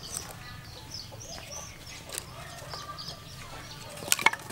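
Chickens clucking and small birds chirping, with a couple of sharp wooden knocks near the end as dry sticks are laid into a stove to build the fire.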